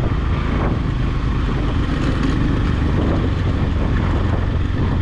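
Motorbike engine running steadily while riding, with continuous road noise.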